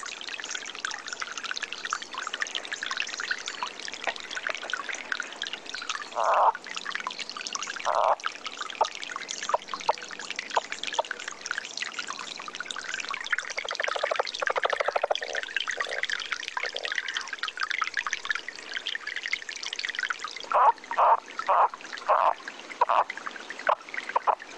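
Lowland leopard frogs calling at night over a steady rush of flowing river water: single croaks about six and eight seconds in, a rapid rattling call around the middle, and a quick run of croaks near the end.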